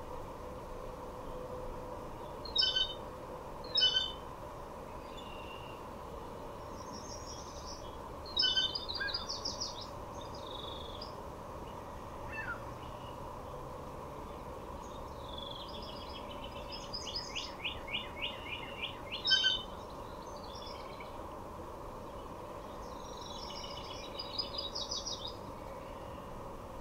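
Woodland songbirds calling and singing: a few short, sharp calls and several quick high trilled phrases, the longest about halfway through, over a faint steady hum.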